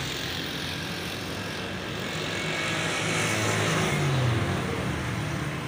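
Roadside traffic, with a motorcycle passing close about four seconds in, its engine note dropping in pitch as it goes by.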